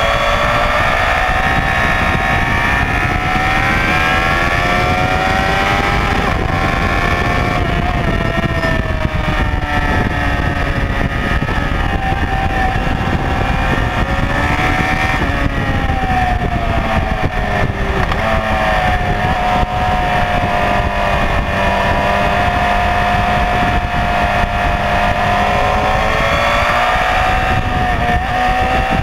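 Honda CBR954RR Fireblade's inline-four engine at track speed, its pitch climbing as it accelerates out of corners and dropping off as it slows for the next ones, several times over. Wind rushes steadily over the microphone underneath.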